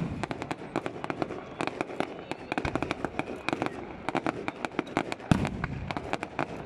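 Fireworks display: aerial shells bursting, with a deep boom at the start and another about five seconds in, over continuous rapid crackling and popping.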